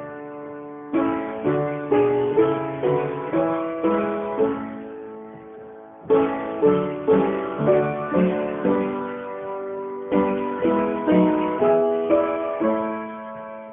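Instrumental music: slow phrases of plucked-string notes, each struck and fading, with short pauses between phrases.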